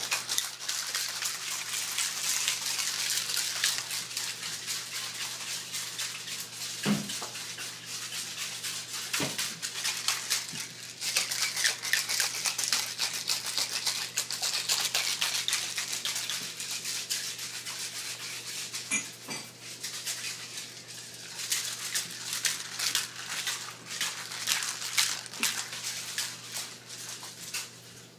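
Partly melted ice and salt rattling and sloshing inside a plastic Ice Cream Magic ball that is being shaken hard to freeze the ice-cream mix inside. It makes a dense, continuous rattle with a few brief lulls.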